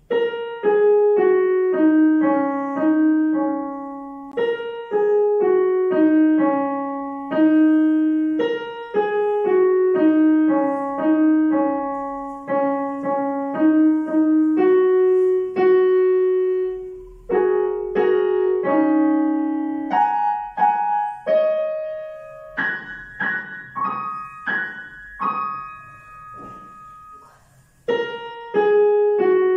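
Digital piano played by a child: a simple melody of single notes, built on a falling phrase that repeats every few seconds. In the later part the melody moves higher and quieter, then after a short pause the falling phrase comes back near the end.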